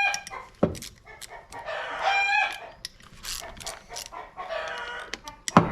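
A rooster crowing several times, with hens clucking, over metallic clicking from hand tools on the engine cover. There are two sharp knocks, about half a second in and near the end; the last one is the loudest sound.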